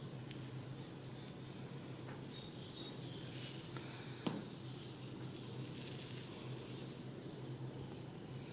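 Hands massaging a head close to the microphones: faint rubbing and scratching on hair and skin over a low steady hum, with a single sharp click about four seconds in.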